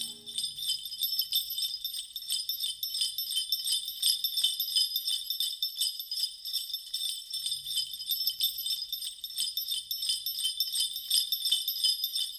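Sleigh bells shaken in a steady rhythm, about four shakes a second, playing on alone at the tail of the background music.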